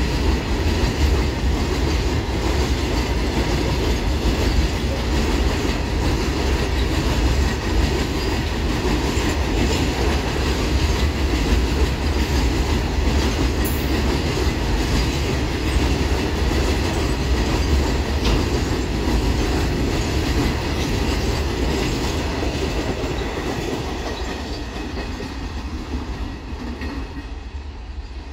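Freight train hauled by a WAG9H electric locomotive passing at speed, its wagons rolling by on the track in a steady clatter that fades away over the last few seconds.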